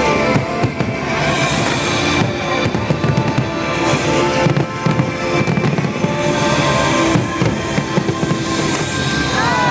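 Fireworks going off in a dense run of rapid pops and crackles, with music playing under them throughout.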